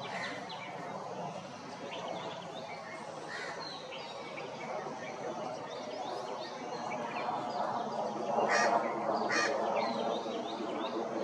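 Outdoor birdsong: many small birds chirping, with two louder, harsher bird calls about eight and a half and nine and a half seconds in.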